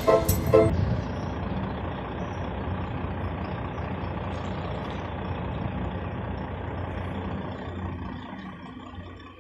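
Truck engine running steadily, a low even rumble that fades away over the last couple of seconds. The tail of background music cuts off within the first second.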